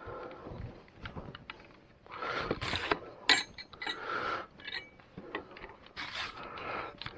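Fishing tackle being handled: small sharp clicks and scraping, rustling sounds of rod, reel and line being adjusted, with a few short louder rustles.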